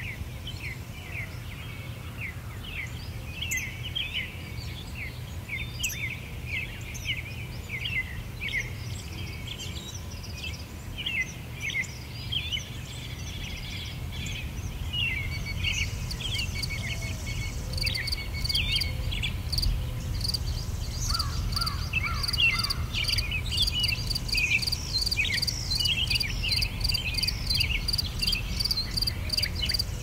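Forest birdsong: many small birds chirping and calling in quick, short notes. About halfway through, a high, fast-pulsing insect trill joins in and grows louder, over a steady low rumble.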